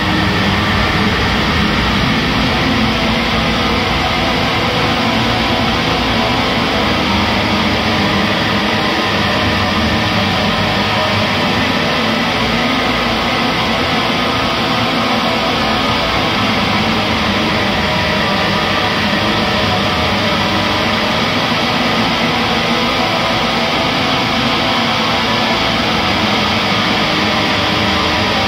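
Atmospheric black metal (blackgaze) music: a dense, unchanging wall of distorted guitars and drums at a steady, loud level.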